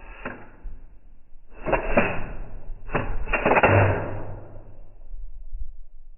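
Slowed-down gunfire from a Smith & Wesson FPC 9mm pistol-caliber carbine: three deep, drawn-out blasts, each with a long trailing rumble.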